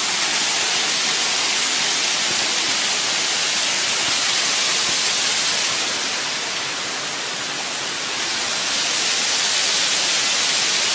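Station Cove Falls waterfall rushing steadily at close range, a dense hiss of falling water that eases slightly in loudness about six seconds in and comes back up by eight seconds.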